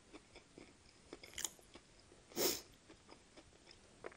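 Close-miked chewing of a fried chicken sandwich: soft wet mouth clicks and small crunches, with one louder, longer mouth noise a little past halfway.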